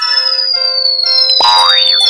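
Electronic music with cartoon sound effects: held synth notes under a high tone that falls slowly, then a quick rising glide about a second and a half in.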